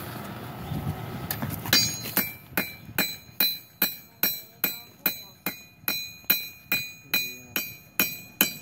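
A blacksmith's hand hammer striking hot metal on an anvil in a steady rhythm of about two and a half blows a second, each blow ringing. It starts a little over a second in, after a steady rushing noise.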